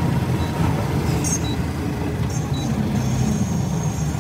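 Tata 5530 eighteen-wheeler's diesel engine running at road speed under load, a steady low rumble with road noise. A few short, thin high-pitched tones sound over it about a second in and midway, and a longer one near the end.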